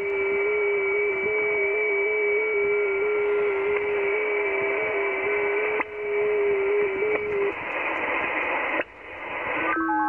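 FT8 digital-mode signals on the 40 m band coming from an Icom IC-7600 transceiver: several steady tones that step slightly up and down in pitch over a hiss of band noise. The loudest tone stops about three quarters of the way through. Near the end the hiss cuts off and a new set of tones begins, the next FT8 transmission period.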